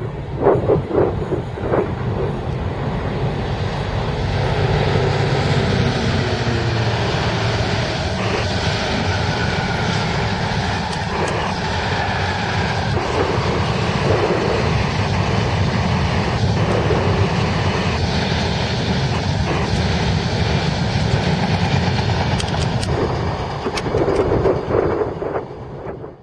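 A train passing at speed close by: a steady loud rush of rolling coaches with wheels clicking over rail joints. It cuts off abruptly at the end.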